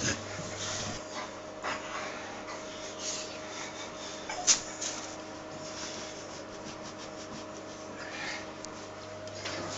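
A towel rubbing over a wet Labrador's coat, with the dog breathing as it squirms on the floor. There is a sharp knock about halfway through.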